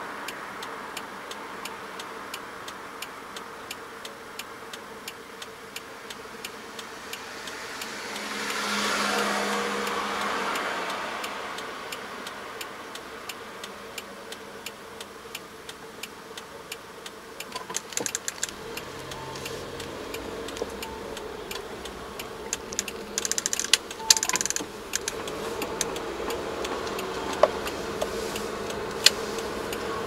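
Car turn-signal ticking steadily, about one and a half ticks a second, over a low engine hum inside the cabin of a car waiting at a light. A passing vehicle swells and fades about eight to eleven seconds in.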